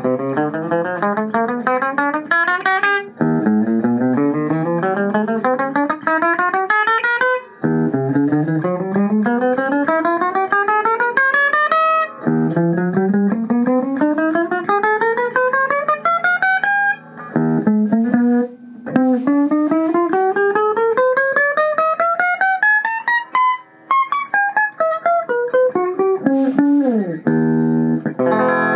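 Yamaha Revstar RSP20X electric guitar played in fast rising scale runs, each climbing steadily in pitch for about three to four seconds before starting again low, with a falling run near the end.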